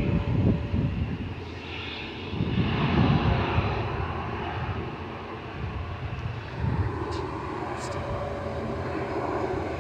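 Distant Airbus A320neo airliner's jet engines running on the runway: a steady low rumble with a faint level whine.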